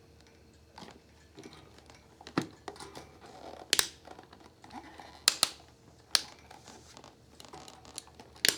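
Handling noise from a plastic 12-inch oscillating table fan being turned over: about half a dozen sharp clicks and knocks with rustling in between.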